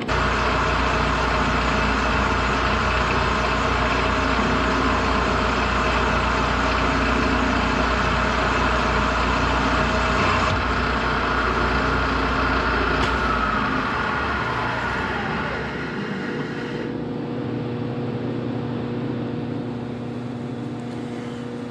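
Milling machine spindle running a boring head through a finishing cut in a worn tractor front-axle bore, a steady machine noise with a few steady tones. About two-thirds of the way through a falling whine is heard and the noise drops, leaving a quieter steady hum.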